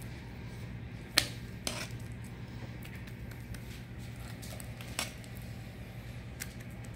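A metal serving spoon clinking a few times against a cast iron skillet as mashed potatoes are spooned in, the sharpest clink about a second in, over a steady low hum.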